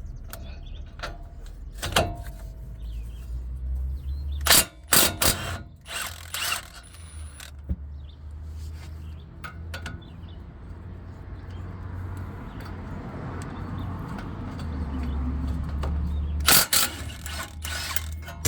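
Ratchet wrench clicking as the 19 mm caliper bracket bolts are worked loose, with sharp metal clinks and knocks of tools and parts.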